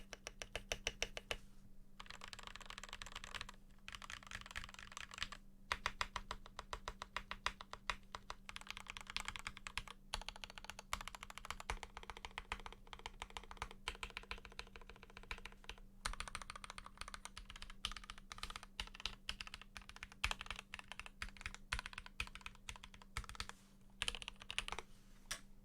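Fast typing on a Keychron K8 mechanical keyboard with lubed Gateron Pro Yellow linear switches and stock OEM-profile keycaps: rapid runs of keystrokes broken by a few short pauses, with a faint steady hum under them.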